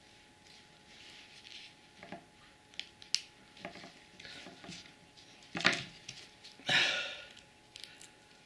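Clicks, taps and rustles of nitrile-gloved hands squeezing epoxy from a tube into a small plastic cup and stirring it with a wooden stick. Two louder rustles come a little past the middle, the second lasting about half a second.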